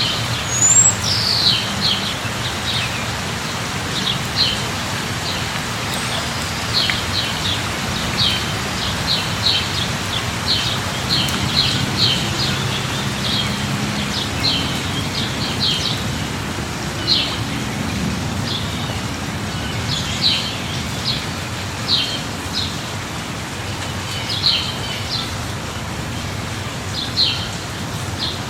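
Steady light rain falling, with small birds chirping in short high calls every second or so throughout.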